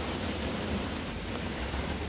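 Blizzard wind blowing across the microphone: a steady hiss with a low rumble underneath.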